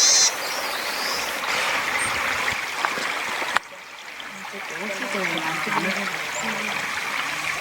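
Forest stream running with a steady rush of water. A small bird's clear, high song ends just as it begins. About three and a half seconds in, the sound cuts to a quieter stretch of the stream.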